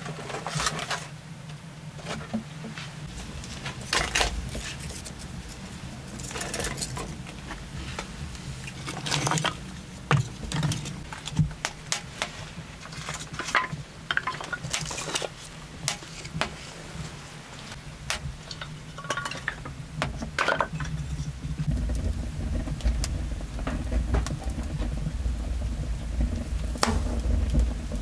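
Kindling burning in a brick wood-fired oven, crackling with irregular sharp snaps as it catches. About three-quarters of the way in, a low rush of flames grows under the crackle as the fire takes hold.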